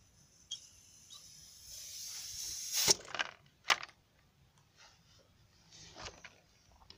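Compressed air hissing from a tyre inflator hose for about two seconds, growing louder and then cutting off suddenly. A few sharp clicks of the metal hose coupling being handled follow.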